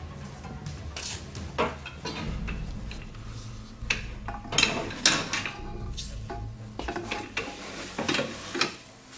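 Metal tubes and brackets of a display-wall stand clinking and clanking as they are handled and fitted together by hand: a scatter of sharp knocks and rattles, the loudest around four to five seconds in and again near the end.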